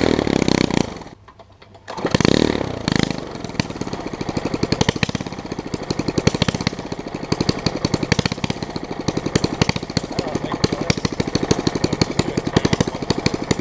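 Small lawn mower engine with no muffler, running on sprayed starter fluid: two loud bursts of revving, with a brief drop after the first, then it settles into a steady, rapid open-exhaust popping.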